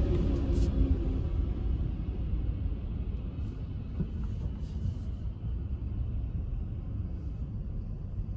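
Low, steady rumble of a car rolling slowly out of a drive-thru car wash, heard from inside the cabin. A louder rumble fades away over the first two seconds.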